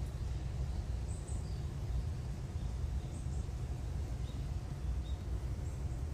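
Outdoor ambience: a steady low rumble with about half a dozen faint, short bird chirps scattered through it.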